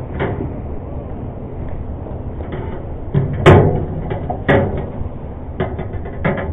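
A wire hoop net and its metal rim knocking and clattering against a stainless steel fish-cleaning sink. The irregular knocks are loudest about three and a half seconds in and again a second later, over a steady low rumble.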